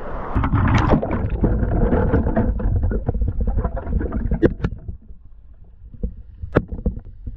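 Rushing, splashing water of a mountain stream at a waterfall. It dies down about five seconds in, leaving a few sharp knocks.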